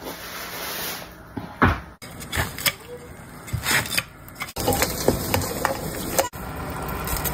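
Kitchen handling sounds in short pieces that cut off abruptly: a knife knocking and scraping on a wooden chopping board as pig's trotters are cut, then chopped chicken pieces clattering in a metal pot.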